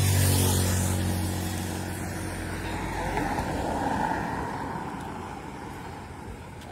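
Motor vehicles passing close by on the road. One engine runs loudest right at the start and fades away over the next two seconds, then a second vehicle's tyre and engine noise swells and fades about four seconds in.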